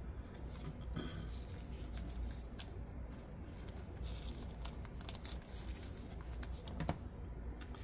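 Thick trading cards being handled and slid against one another: soft rustling and scattered small clicks, over a low steady hum.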